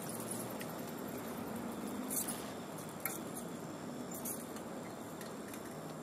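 Steady outdoor background hiss with a faint low hum, broken by a few short, high-pitched squeaks or ticks, the clearest about two, three and four seconds in.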